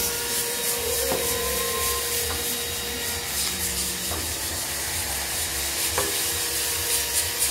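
Sandpaper rubbing back and forth on wooden cutting boards: hand sanding, a steady scratchy hiss of repeated strokes, with a light knock or two.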